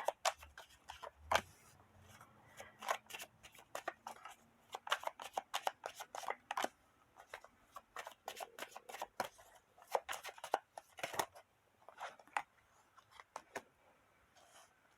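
Tarot cards being shuffled by hand: a quick, irregular run of card snaps and rustles that thins out near the end.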